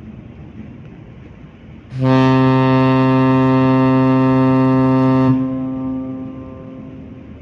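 Ferry's ship horn giving one long, steady, deep blast of about three seconds as the ferry comes in to berth. The blast starts about two seconds in and its echo dies away afterwards.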